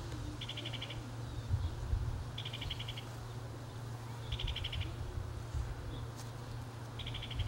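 Outdoor chirping: a short trill of rapid pulses, about half a second long, repeating roughly every two seconds.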